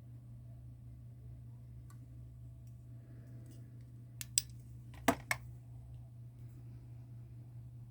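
Akai GX-9 cassette deck's transport mechanism clicking: two sharp clicks about four seconds in, then two louder ones a second later, over a steady low hum.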